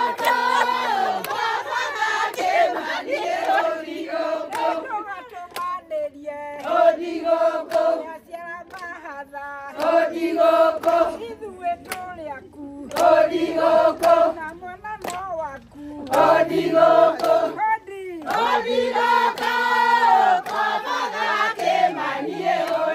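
A group of women singing a celebratory song together in short phrases with brief pauses between them, with hand clapping throughout.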